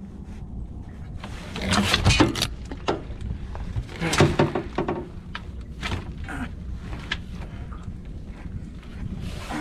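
Freshly landed sturgeon thrashing on a boat deck: two bursts of slapping and thumping, about two and four seconds in, with lighter knocks in between.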